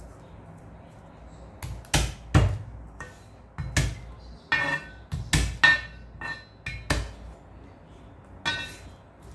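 A cleaver smacking garlic cloves against a wooden cutting board to crush them: about eight sharp, irregular knocks, some with a brief metallic ring from the blade.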